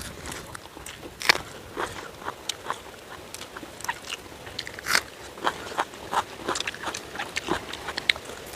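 A person eating: irregular crisp bites and crunching chews, the loudest about a second in and again about five seconds in.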